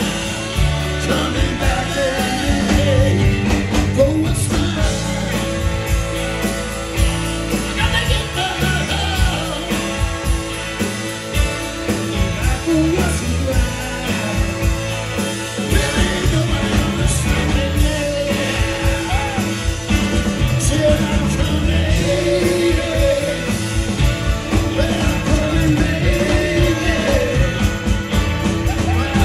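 Live rock and soul band playing loudly, with two men singing lead vocals over electric guitar, drums and a horn section.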